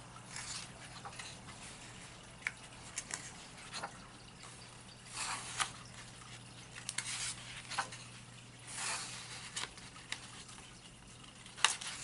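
Paper pages of a colouring book being turned by hand: several soft rustles and swishes of paper a second or two apart, with light clicks and taps, the sharpest a tap near the end. A faint steady low hum runs underneath.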